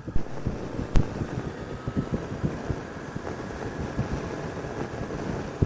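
Motorcycle ride heard through a helmet-mounted Bluetooth microphone: a low rumble of engine and wind with irregular pops and clicks scattered through it, the sharpest about a second in. The pops are the kind of popping the rider gets over his voice track.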